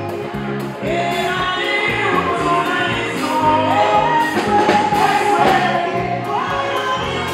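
Live gospel music: singing voices over a band with a steady drum beat.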